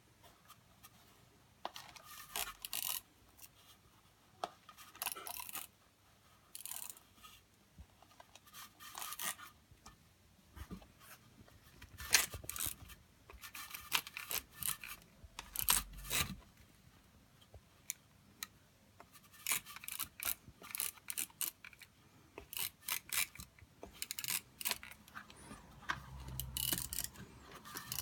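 Hands rubbing and pressing a thin black plastic terrain base against a polystyrene board while fixing it with double-sided tape: irregular bursts of scratchy rubbing, crinkling and scraping with short pauses between, and a few dull knocks.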